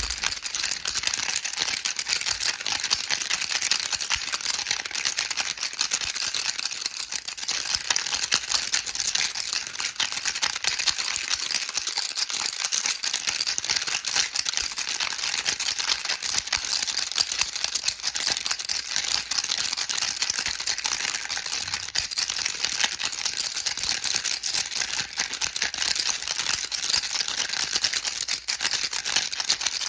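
Baby rattle shaken without pause: a dense, steady stream of small rattling clicks.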